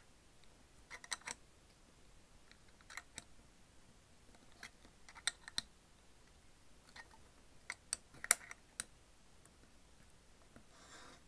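A coin prying and tapping at the inner lid of a Sakuma Drops metal tin: small, sharp metallic clicks and scrapes that come in short clusters, the loudest click about three-quarters of the way through.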